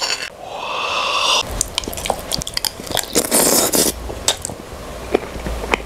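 Metal spoon scraping and clinking against a small nonstick frying pan as a fried egg is scooped up and eaten: a longer scrape in the first second and a half, then scattered sharp clicks and another scrape about three seconds in.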